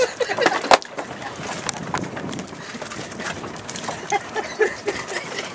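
Wind and water noise with irregular knocks, with short snatches of voices near the start and again about four seconds in.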